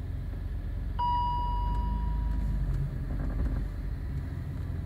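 Steady low rumble inside a BMW E46 M3's cabin, and about a second in a single electronic chime tone that fades away over a second or so.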